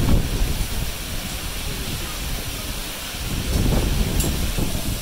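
Torrential rain mixed with hail pouring down, a dense steady hiss, with a low gusty rumble swelling about three and a half seconds in.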